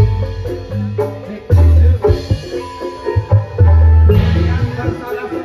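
Campursari music playing loud: a repeating melody of short struck notes over a drum beat, with deep bass notes held about half a second at a time.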